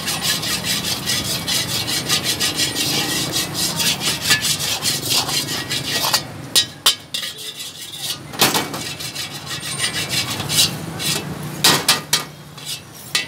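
Metal ladle scraping around the inside of a wet wok. Rapid, continuous scrapes for about six seconds, then slower, separate scrapes and knocks against the pan.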